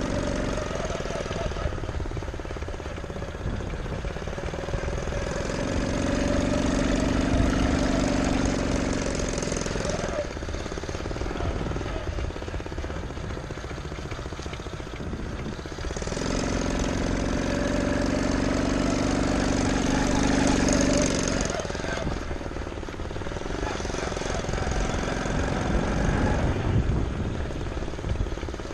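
Small gasoline engine of a custom-built motorized bicycle running under way. Its pitch rises and holds as it is throttled up, then drops back as it eases off, three times over.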